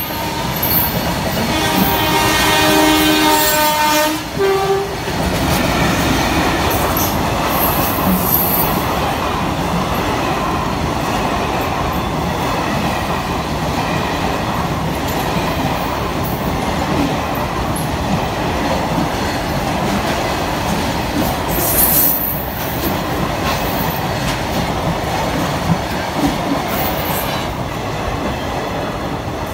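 An electric locomotive's multi-tone horn blows for about two and a half seconds near the start, followed by a short toot. After that comes the continuous rumble and clickety-clack of a passenger train's coaches, double-deckers among them, running past at speed, with a few brief squeals or rattles about two-thirds of the way in.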